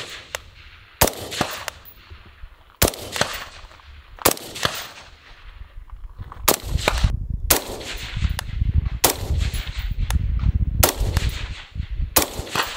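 IWI X95 Tavor bullpup rifle in 5.56 fitted with an OSS HX-QD 556 Ti suppressor, fired in slow single shots: eight shots about one to two seconds apart, each with a short echoing tail.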